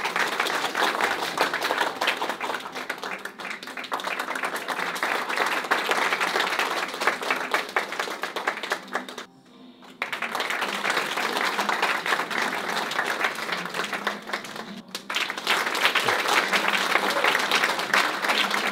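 Audience applauding: many hands clapping steadily, breaking off for about a second near the middle and then picking up again.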